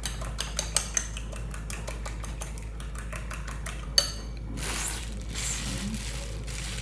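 A metal utensil clinking and scraping against a dish in rapid light clicks, with one sharper clink about four seconds in, followed by softer scraping.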